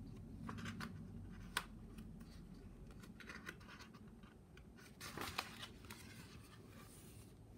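Faint rustling of paper as a page of a large hardcover picture book is turned by hand. There is a short click about a second and a half in, and a louder rustle as the page flips over about five seconds in.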